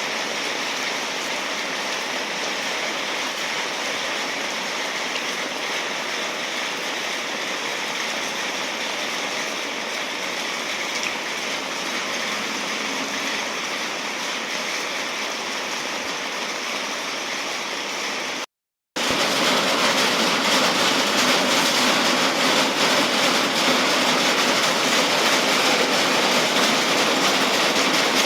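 Steady rain falling. A brief cut comes about two-thirds of the way in, after which a louder, denser rushing noise continues.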